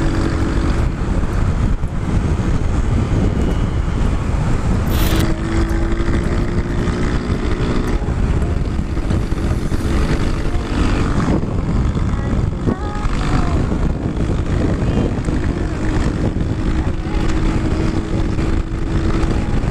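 Riding a Sanya S50 110cc scooter at speed: wind buffets the microphone in a heavy low rumble, with the engine's steady drone beneath it, louder at times. A sharp click about five seconds in.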